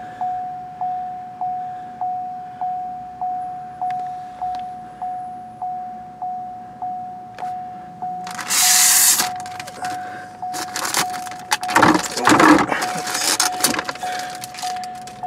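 Car warning chime repeating steadily, a single-pitch ding about every 0.6 s, from a 2015 Cadillac SRX sitting with its power on and the CUE head unit pulled out. About halfway through and again near the end come bursts of rustling and clatter.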